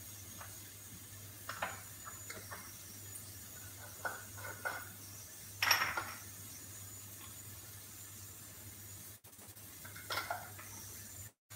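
Small spice jars and a spoon clinking and knocking against each other a handful of times, the loudest clink about six seconds in, over a steady low hum.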